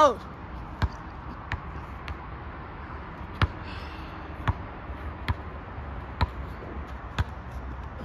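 Rubber basketball bounced on an asphalt court: sharp single bounces roughly once a second, unevenly spaced. A brief squeak falling in pitch, the loudest sound, comes right at the start.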